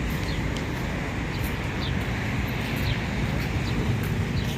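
Steady outdoor background noise with a low rumble, and a few faint short high chirps scattered through it.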